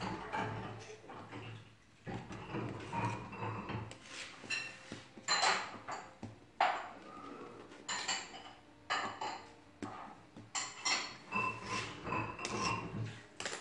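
A kitchen knife clicking and scraping against a marble worktop as bread dough is cut into portions, with the dough pieces set down on the stone; irregular clicks and short scrapes.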